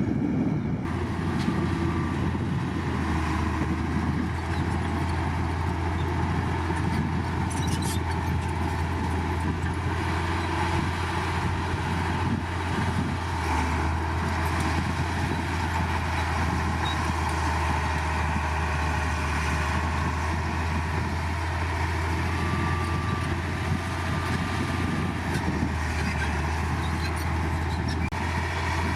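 Heavy diesel earthmoving machinery running steadily, a continuous low engine sound with no break.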